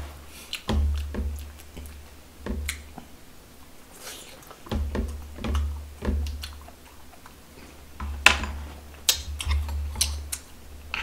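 A person chewing food close to the microphone, with sharp clicks of chopsticks and a metal spoon against dishes and a stone bowl.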